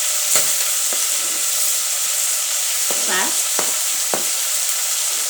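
Chopped onion and ginger frying in hot cooking oil in a pan: a steady sizzle, with a few knocks of the stirring spoon against the pan.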